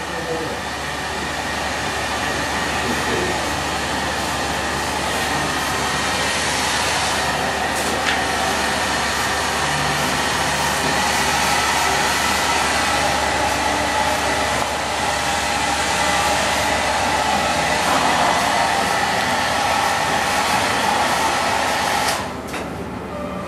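An electric air blower running steadily, a rushing of air with a faint whine. It cuts off abruptly about a second before the end.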